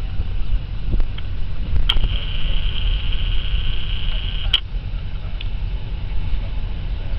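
Camcorder zoom motor whining steadily for about two and a half seconds, starting and stopping with a click, as the lens zooms out. Under it runs a steady low rumble of wind on the microphone.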